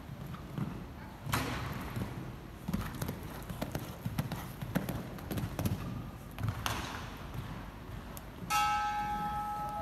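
Horse cantering on indoor sand arena footing, its hoofbeats coming as dull irregular strikes. About eight and a half seconds in, a steady electronic tone comes in and holds.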